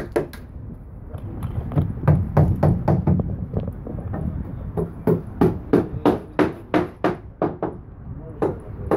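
Hammer blows on timber, struck unevenly several times a second, with a low rumble underneath that swells for a moment a couple of seconds in.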